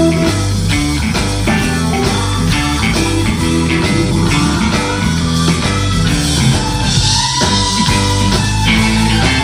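Live blues-rock band: electric guitar played over bass and drums, with a cymbal wash about seven seconds in.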